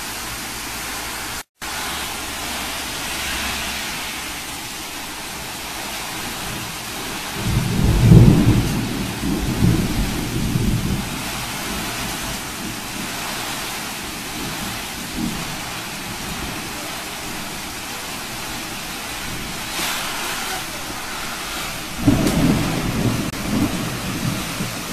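Heavy rain pouring steadily in a storm, with a deep rumble swelling up about seven seconds in and another near the end.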